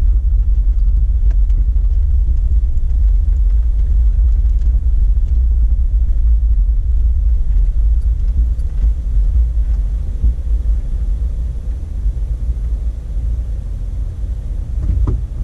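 Jeep Wrangler driving on a dirt road, with a steady low engine and road rumble heard from inside the cab. The rumble drops a little in level near the end.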